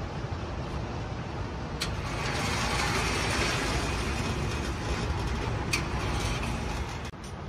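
Steady rumble of ventilation noise that swells through the middle, with two faint sharp cracks about four seconds apart.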